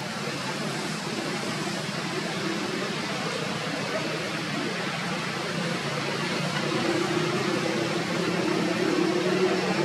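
Steady hiss of outdoor background noise. About two-thirds of the way in, a low steady hum joins it and the sound grows slightly louder.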